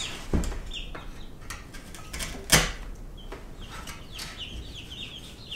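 A freshly sharpened wood chisel paring a notch in a pine board: a few crisp cuts, the loudest about two and a half seconds in. Chickens cluck in the background.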